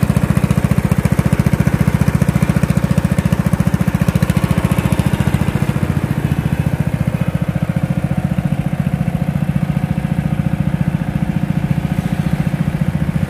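Rabbit RM82 ride-on mower's 14 hp Kawasaki engine running steadily, its firing pulses even and unbroken. The seller vouches that the engine holds full compression.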